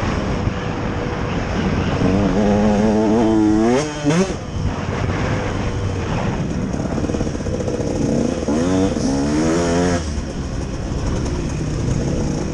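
Motocross dirt bike engine at race pace, heard from the rider's helmet with wind rushing over the microphone. The revs climb for about two seconds, drop sharply about four seconds in, then climb again between about eight and a half and ten seconds.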